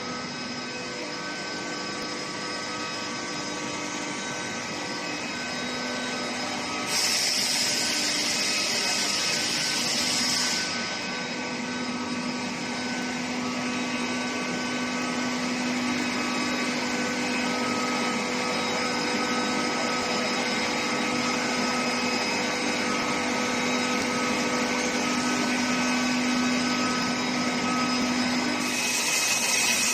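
Steady industrial drone with several steady whining tones from an induction steel-pipe tempering line running. A loud hiss comes in about seven seconds in, lasts about three and a half seconds, and starts again just before the end.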